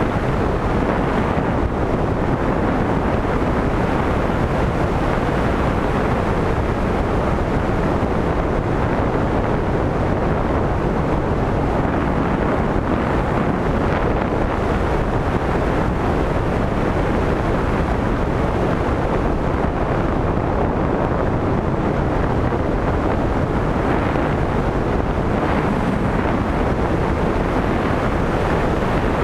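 Steady rush of airflow over the onboard GoPro camera's microphone on a Skywalker 1900 RC glider in flight.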